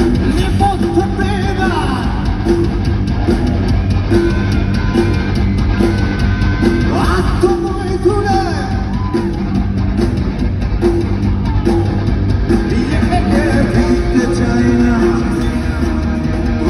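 Live rock band playing loudly, with drum kit, guitar and singing.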